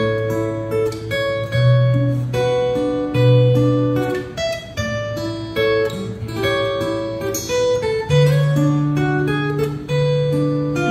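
Solo acoustic-electric guitar playing an instrumental piece: a picked melody of separate notes ringing over held bass notes.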